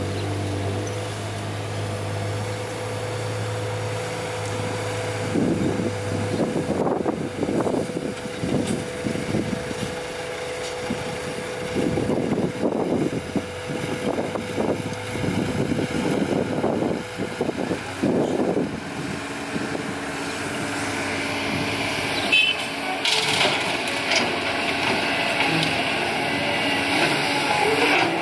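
Diesel engine of a CAT 320D hydraulic excavator running as it digs and loads a dump truck. The sound swells and drops irregularly through the middle and grows louder and brighter in the last few seconds.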